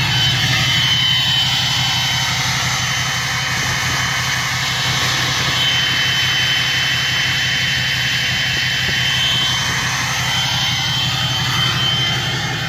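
Cummins diesel engine idling on a cold start, a steady low pulsing run with a high steady whistle over it, the turbo whistling.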